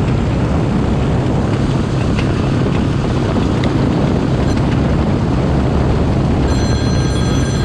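Steady wind rush and low rumble on the microphone of a camera moving at road speed on a vehicle. A thin, steady high whine joins about a second before the end.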